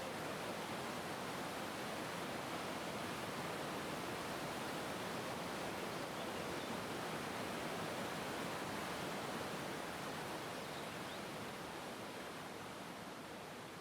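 Small waterfall rushing in a steady, even wash of water noise, fading out over the last few seconds.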